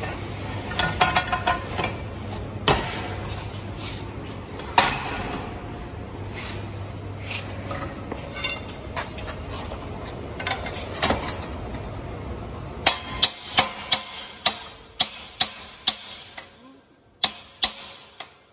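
Steel parts of a manual straddle stacker's fork carriage knocking and clanking as the fork is fitted. In the second half comes a run of about a dozen sharp, ringing metal strikes, roughly two a second: the fork axle being hammered into place.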